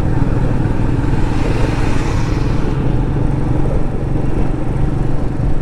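Royal Enfield motorcycle engine running steadily under way, its low even pulse carrying on through the whole stretch, with a rise of hiss for a moment around two seconds in.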